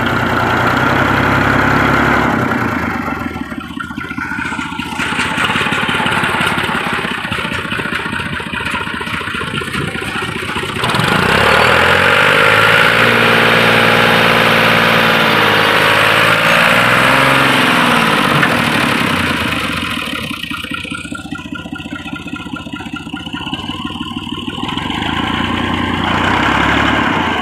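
Fiat 480 tractor's diesel engine running under load, revved harder from about a third of the way in for several seconds with its pitch rising and falling, then easing back to a steadier drone. It is labouring to pull a soil-laden trolley whose wheels are stuck in soft sand.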